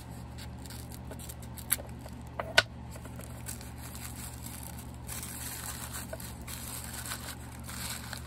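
Scissors snipping open small packaging: two sharp clicks close together about two seconds in, followed by soft rustling of the wrapping being pulled open.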